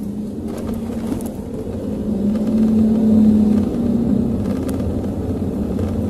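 Toyota Vios driving, heard from inside the cabin: engine hum and road rumble that swell over the first three seconds or so, then hold steady. No knocking from the rear drum brakes, which have just been cleaned and adjusted.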